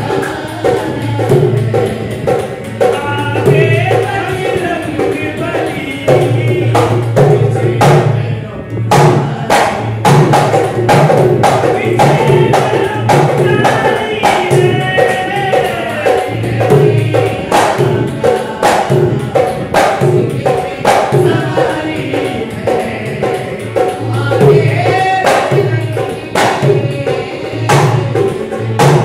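Live devotional song (mata ki bhet) sung to a harmonium, with a dholak drum keeping a steady rhythm of sharp slaps and deeper beats.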